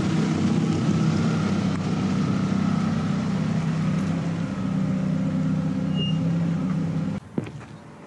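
Car engine running at low revs close to the ground as the car creeps slowly over a pen on asphalt. The engine sound cuts off abruptly about seven seconds in, followed by a short sharp click.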